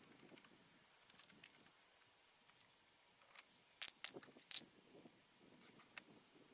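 Wooden cribbing blocks knocking together as they are lifted off a stack: one sharp knock about a second and a half in, a quick cluster of three or four around four seconds in, and a last one near the end, with near silence between.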